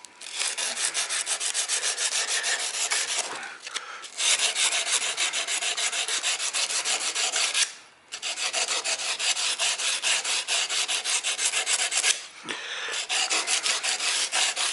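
Beryllium-copper RC boat propeller blade being hand-sanded with sandpaper wet with sticky cutting fluid: fast back-and-forth rubbing strokes in four runs, with brief pauses about four, eight and twelve seconds in.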